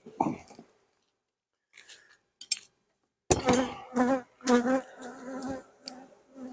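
Honey bees buzzing close past the microphone, getting loud about three seconds in, with a wavering pitch as they fly around.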